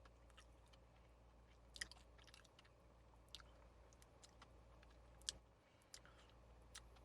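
Faint chewing of a donut: a handful of soft, irregular mouth clicks over a low steady hum.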